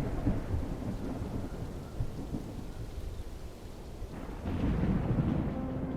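Thunder rumbling, loudest at the start, easing off, then swelling into a second roll of rumble about four and a half seconds in.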